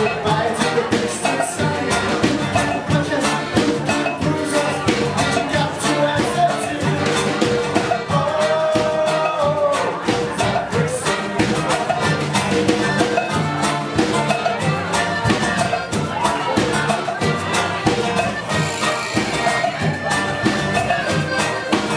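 Live Latin dance band playing: congas and timbales drive a steady beat under electric guitar and accordion, with a woman singing over it.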